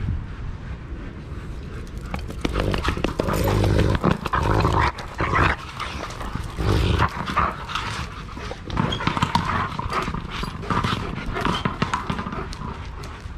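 Shepherd dogs and puppies play-fighting: irregular bursts of growling and scuffling, loudest in the middle.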